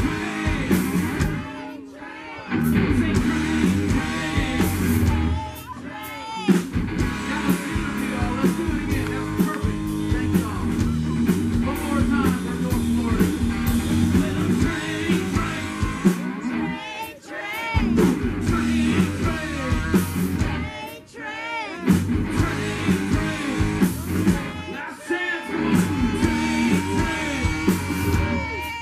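Live rock band playing: distorted electric guitars, electric bass and drum kit, with bending lead-guitar notes and a few brief breaks where the band stops for a moment.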